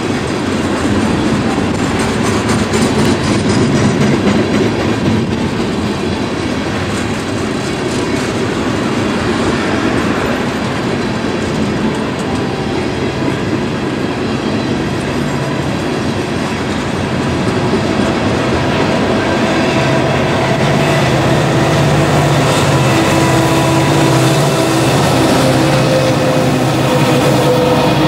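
Loaded railroad tank cars rolling past, with steel wheels clattering over the rail joints. About two-thirds of the way through, the steady drone of the rear helper SD70ACU diesel locomotives comes in and grows louder as they approach.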